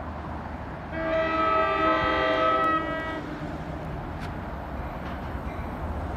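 Train's air horn sounding one long blast of several tones together, about two seconds long, starting about a second in. A low steady rumble from the approaching train runs underneath.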